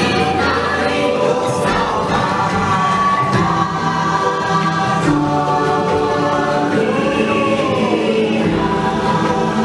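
Choir singing over music, with held voices that slowly rise and fall: the chant-like soundtrack played along the Na'vi River Journey boat ride.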